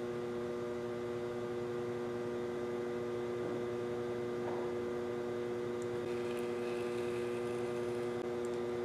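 Electric pottery wheel's motor humming steadily while the wheel head turns at slow speed.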